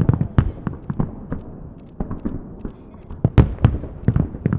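Festive fireworks salute: a run of firework shell bursts, each a sharp bang with a low rumbling tail. They come in clusters, loudest about three and a half seconds in.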